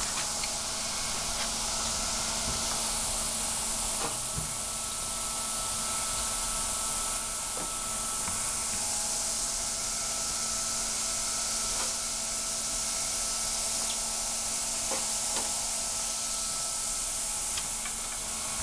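Steady hiss of escaping cold gas around a frost-covered glass cylinder in which argon is being frozen into a solid, with a few faint ticks scattered through it.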